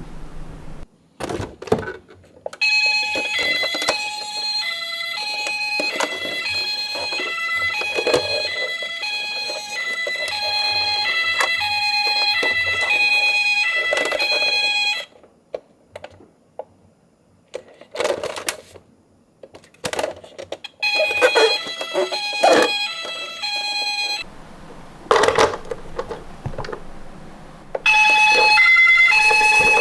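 Electronic ambulance-siren beeps in quick stepped tones that stop and start twice, over the small clicks and clatter of die-cast toy cars rolling down a slope.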